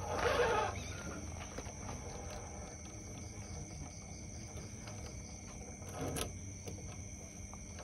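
A small electric RC rock crawler working slowly over rock, its motor and gears running faintly, with a brief louder burst at the start and a short knock about six seconds in.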